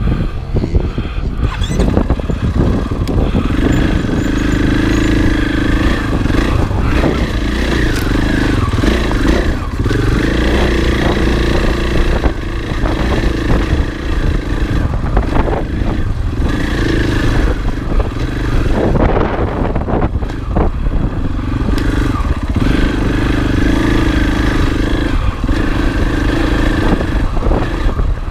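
Husqvarna FE 501 single-cylinder four-stroke dirt bike engine running hard, revving up and backing off every few seconds as the throttle is opened and closed. Scattered knocks and clatter sound over it.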